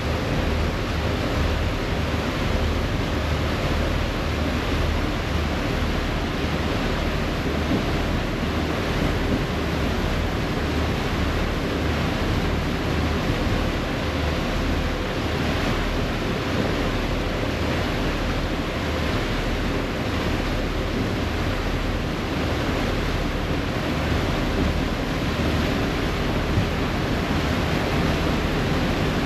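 Steady rush of wind and water aboard a moving ferry, with gusts buffeting the microphone and a low engine rumble underneath.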